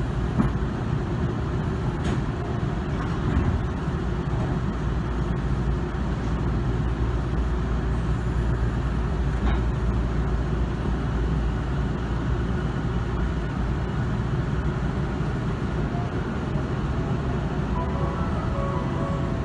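Electric commuter train heard from inside the car: a steady low rumble as it stands at the platform and then pulls away. Near the end its traction motors start a whine of stepped, rising tones as the train accelerates.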